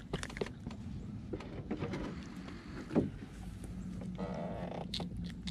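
Close-up handling of a small freshly caught fish and its hook: scattered clicks, rustles and scrapes by hand, with a brief low sound sliding down in pitch about three seconds in, the loudest moment. A steady low hum sets in about halfway through.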